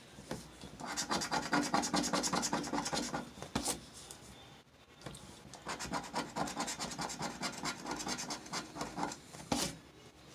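Scratching the coating off a scratch-off lottery ticket in two bouts of fast, rasping strokes with a short pause between.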